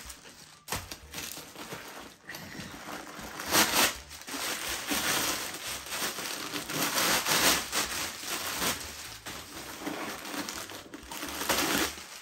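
Crumpled white stuffing paper crinkling and rustling as it is pulled out of a new mini backpack and squeezed in the hand, in repeated bursts, loudest about three and a half seconds in.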